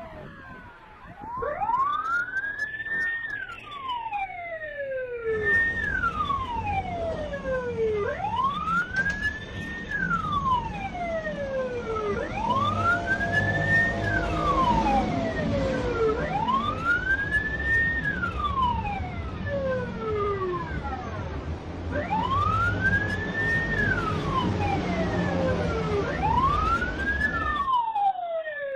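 Police siren wailing, rising and falling about once every four seconds, with fainter wails overlapping it. From about five seconds in, a low rumble of traffic runs underneath.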